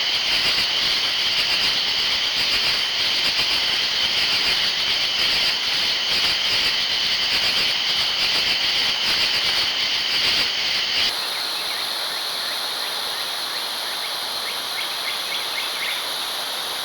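Outdoor ambience picked up by a trail camera's microphone: a steady high-pitched drone over hiss. About eleven seconds in it changes abruptly to a slightly quieter mix with a higher-pitched drone, as one camera clip gives way to the next.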